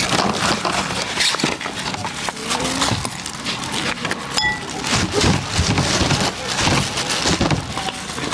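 Plastic bags and foam food boxes rustling and clicking as they are handled and packed, with brief voices and a short high chirp about four seconds in.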